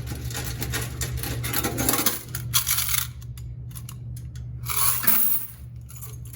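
Coins clinking and clattering as quarters are handled and poured, in two busy spells, over a steady low hum.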